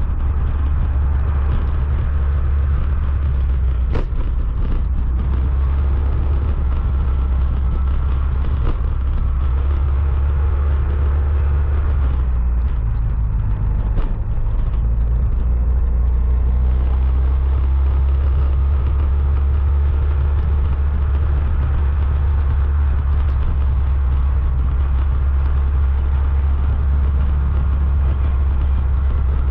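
Motorcycle running at low street speed, heard from a camera on the bike, with a steady low rumble of wind on the microphone. Two short clicks, one a few seconds in and one about halfway through.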